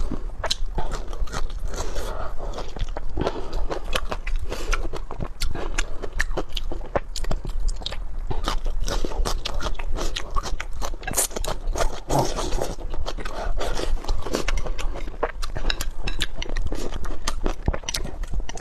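Close-up eating sounds: a person chewing and crunching food, with many quick, irregular clicks of biting.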